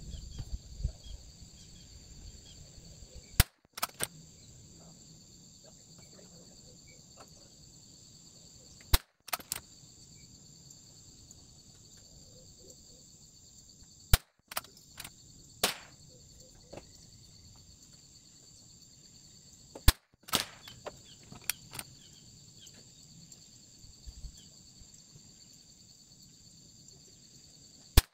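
.22 LR rimfire shots from a Bergara BMR bolt-action rifle, five in all, about five to six seconds apart, each followed shortly by a few quieter clicks as the bolt is worked. A steady high insect drone runs underneath.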